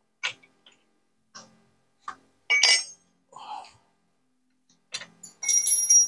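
Scattered clicks and taps of screwdrivers on a front-loading washing machine's metal frame and fittings during reassembly, with two brighter ringing metallic clinks, one about midway and one near the end.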